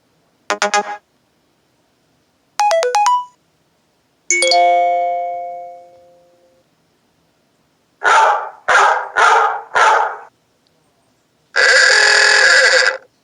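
A run of short iPhone ringtone and alert sounds played through a JBL Flip 3 Bluetooth speaker, separated by silent gaps. In turn: a quick chirp, a few bell-like tones, a bell note that dies away, four short noisy blasts in quick succession, then a held buzzy tone.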